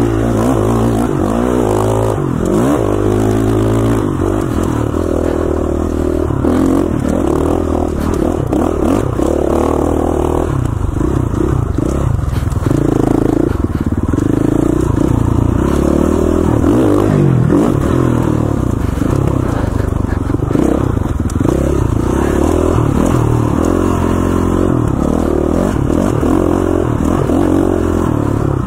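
KTM 450 XCF dirt bike's four-stroke single-cylinder engine running on trail, its pitch rising and falling with the throttle, over a clatter of the bike working over rough ground.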